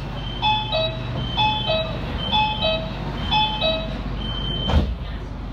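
Metro train door-closing warning: a descending two-note chime sounds four times, about once a second, over a high intermittent beeping. A single sharp thud comes near the end.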